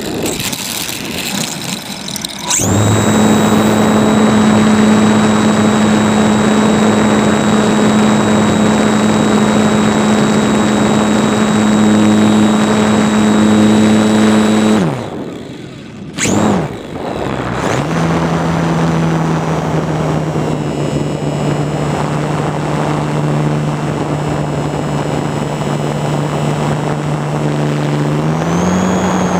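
RC plane's motor and propeller running steadily, with wind rushing over the onboard camera. About halfway through, the throttle is cut and the pitch falls away. The motor then comes back on at a slightly lower pitch, rising briefly near the end.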